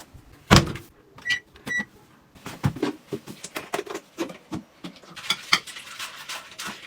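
Washing machine being loaded and started: a loud knock about half a second in, then two short electronic beeps from its control panel, then a run of small clicks and knocks.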